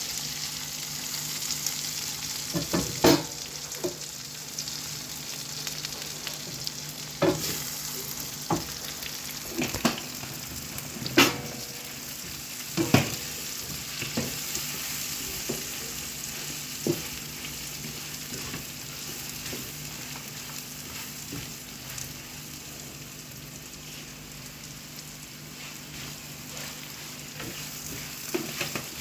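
Food sizzling in a frying pan with a steady hiss, broken by irregular sharp knocks and scrapes of a spatula being stirred against the pan.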